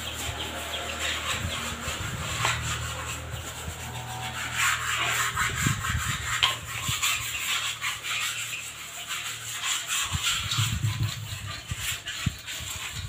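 Cement flower pots being scraped and rubbed clean by hand with a metal scraper, a run of irregular gritty scraping strokes.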